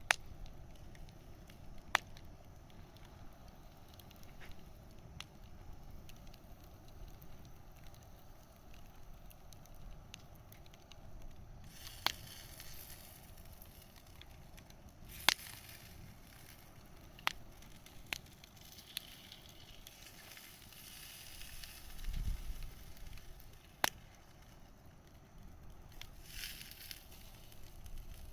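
Wood campfire burning, with sparse sharp pops and crackles and a soft hiss that rises from about midway on. A brief low rumble comes near the end.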